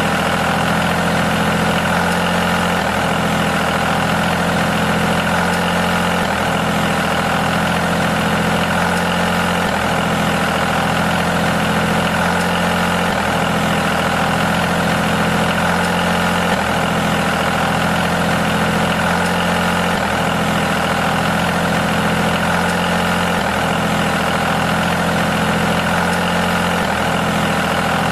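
Steady diesel tractor engine idling sound, a looped sound effect whose pattern repeats about every three and a half seconds.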